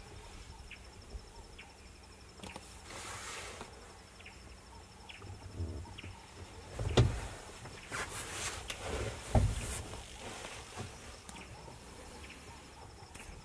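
A steady, high-pitched insect trill with a fine pulse, with scattered rustles and knocks over it; the sharpest knock comes about seven seconds in and a low thud about two seconds later.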